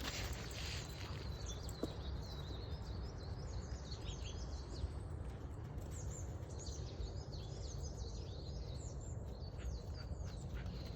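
Wild songbirds chirping and singing, a dense run of short high calls from several birds, over a steady low outdoor rumble.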